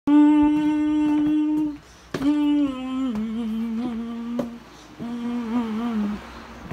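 A voice humming three long, low notes. The first is held steady, the second slides down a little and wavers, and the third wavers again. A few sharp clicks come in between.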